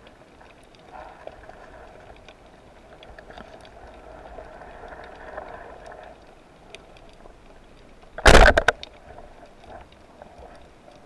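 Underwater, faint scattered clicks over a low hiss, then about eight seconds in a loud, sudden burst lasting about half a second with a few sharp clicks after it: a rubber-band speargun firing, its shaft striking a fish.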